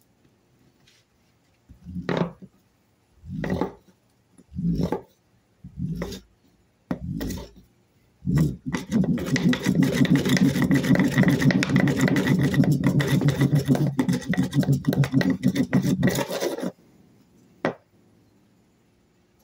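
Fire roll: a wooden hand board rolling a tinder roll back and forth against a plywood tabletop, a rubbing friction sound. First a few slow separate strokes, then about eight seconds of fast, continuous rolling that stops suddenly, worked to heat the tinder toward an ember.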